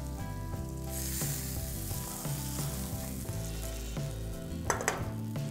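Hot ghee tempering of chillies, mustard seeds, dals, cashews and curry leaves sizzling in a small pan as it is poured over curd and puffed rice, with a short louder hiss near the end. Soft background music plays under it.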